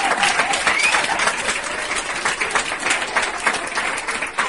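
A crowd applauding, dense clapping throughout, with a faint rising call from the crowd about a second in.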